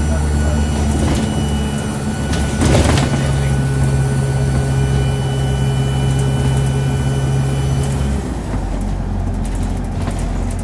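Dennis Dart SLF bus's diesel engine running under way, with a high-pitched turbo whistle over the engine drone. A short loud jolt comes about three seconds in, and the engine note drops near the end.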